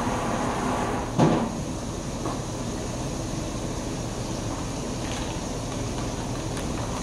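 A steady rushing noise with one loud, sharp knock about a second in and a few faint clicks later.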